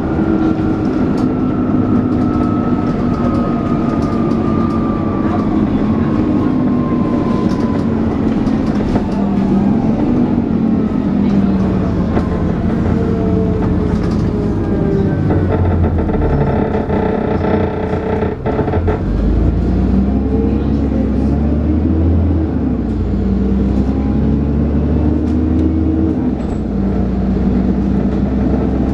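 Dennis Trident 2 double-decker bus heard from on board: the whining drone its fans call the 'hoover' and the engine noise fall in pitch as it slows, settle into a low heavy rumble with a sharp click about two-thirds of the way through, then rise again as it pulls away and accelerates.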